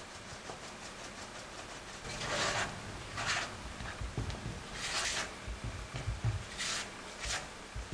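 Faint rapid ticking of a mesh flour sieve being shaken, then a silicone spatula scraping and cutting through flour and butter against the side of a glass bowl in about five separate rubbing strokes, with dull knocks of the bowl in between.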